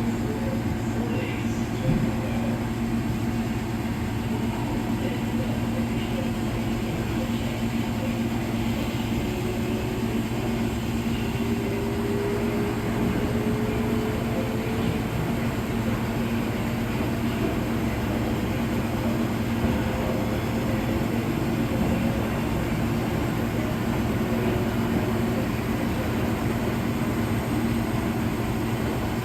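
Two Electrolux Professional WN6-14 commercial washing machines spinning in their final extraction: a steady mechanical hum, with a faint tone slowly rising in pitch through the middle as a drum speeds up.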